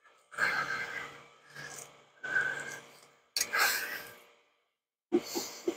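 A man breathing out audibly, about five breaths or sighs in quick succession, with two short taps near the end.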